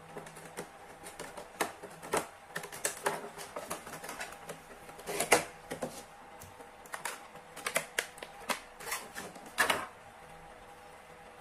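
Crinkling of a clear plastic bag and clicks and taps of a hard plastic toy case being handled and opened, in irregular bursts with a couple of louder crackles.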